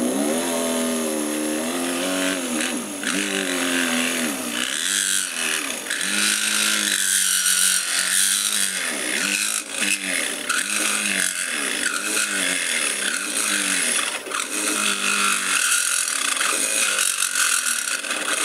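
Mini drill press's small 12-volt DC motor running under load while drilling into a metal plate. Its whine dips in pitch and recovers again and again as the bit is fed in, over a steady high scraping of the bit cutting. The motor is drawing about 2 amps from a bench supply.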